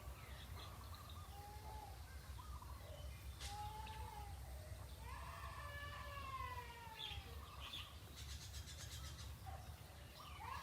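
Several drawn-out animal calls, some arching and one long falling call about halfway through, over a steady low hum.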